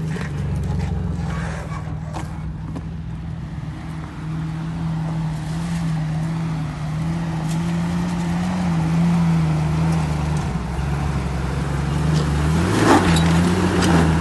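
Jeep Wrangler engine running at low revs while the vehicle crawls over rock, its note wavering slightly up and down. Near the end it gets louder and rougher, with grinding and a few sharp clicks as the tyres work over the rock.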